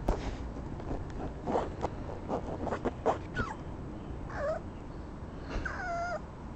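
Cavalier King Charles Spaniel puppy whimpering: two short, high whines in the second half, the later one wavering in pitch. Before them comes a run of short clicks and scuffles as the puppy plays at close range.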